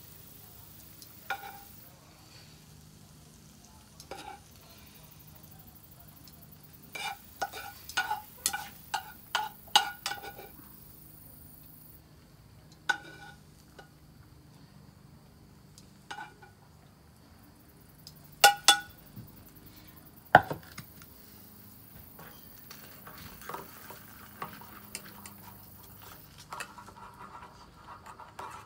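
Metal tongs clicking and tapping against a frying pan while cooked mushrooms are lifted out, in scattered ringing taps with a quick run of about eight taps seven to ten seconds in and two louder ones near eighteen and twenty seconds.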